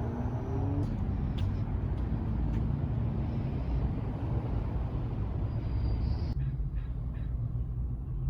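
Steady low rumble of background noise with a few faint clicks; the higher hiss in it drops away about six seconds in.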